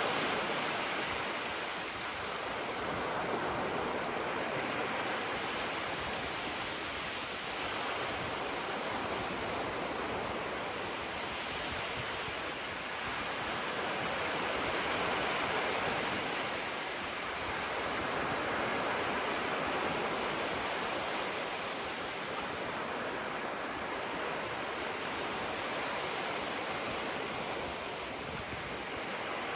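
Small waves gently breaking and washing up on the shore in a continuous hiss of surf, swelling and easing every few seconds.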